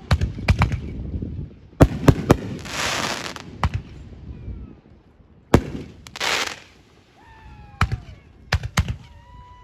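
Aerial fireworks display: shells bursting with sharp bangs, several in quick clusters and others spaced a second or two apart, with two brief hissing rushes in between.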